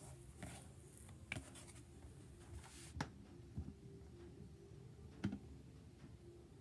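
Quiet handling sounds of hands pressing and sealing pastry dough rounds on a plastic cutting board, with four short soft clicks and taps spread through.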